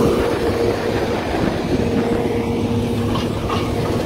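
Tractor engine running steadily at an even pitch, pulling a disc harrow through a standing soybean crop.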